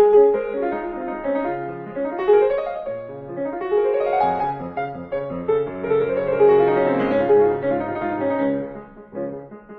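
Background piano music, with a quick run of notes rising about two seconds in and another falling away about seven seconds in.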